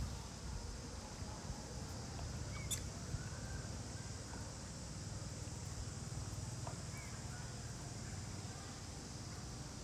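Outdoor background with a low steady rumble, broken by a couple of faint, short, high squeaks about two and a half and seven seconds in, and a single small click just before three seconds.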